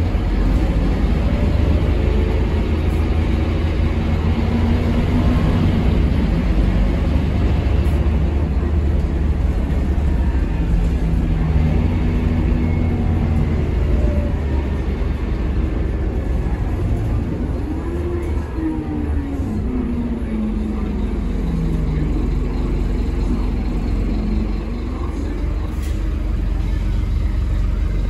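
Cabin sound of a Scania K230UB city bus under way: a steady low rumble from its Scania DC9 five-cylinder diesel and driveline, with road noise. There is a whine that falls in pitch about two-thirds of the way through, and a lighter engine note that rises again soon after.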